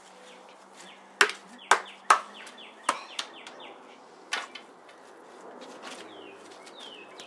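Swords chopping down onto muddy ground and scattered food: five sharp hits within the first four and a half seconds, the first three loudest.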